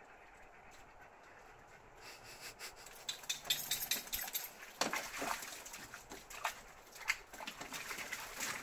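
Dogs playing in a shallow pool of water: irregular splashing and sloshing that starts about two seconds in.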